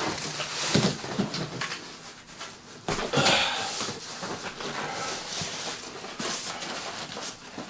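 Cardboard box and styrofoam-and-plastic packing rustling and scraping as a computer case is wrestled out of it, with a few knocks.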